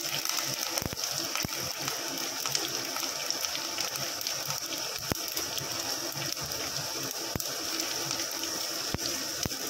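Tempering sizzling in hot coconut oil: mustard seeds, cumin, crushed garlic and freshly added curry leaves frying with a steady hiss and a few sharp pops.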